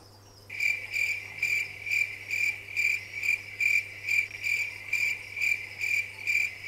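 A cricket chirping: a high-pitched chirp repeated evenly about twice a second, starting about half a second in.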